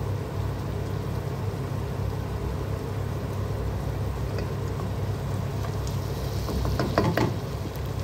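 Chopped tomatoes and onions cooking in a pot on a gas stove, with a steady low hum and faint sizzling. About seven seconds in, a wooden spoon knocks and scrapes against the pot as stirring resumes.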